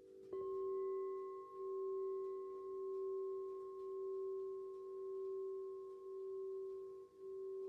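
A Gorin bell, one of a set of five tuned temple bells, struck once just after the start and left ringing: a steady low tone with a fainter higher overtone, swelling and fading about once a second. The ring of an earlier stroke fades beneath it.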